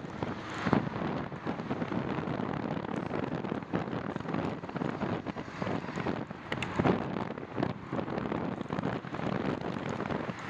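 Wind rushing over the microphone of a moving bicycle, a steady noise, with irregular knocks and rattles as the bike jolts over cracked asphalt.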